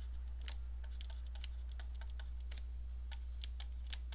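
Stylus clicking and tapping on a tablet screen while writing by hand: sharp irregular clicks, two or three a second, over a steady low hum.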